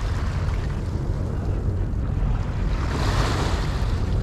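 Small waves breaking and washing up a pebbly, rocky shore, one wash swelling louder about three seconds in, with wind rumbling on the microphone.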